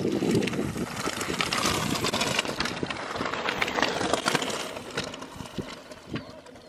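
Mountain bikes riding over rough grass: a rushing tyre noise scattered with short clicks and rattles, fading away gradually.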